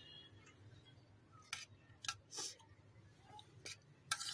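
Quiet pause with low room hum and a handful of short, faint clicks scattered through it.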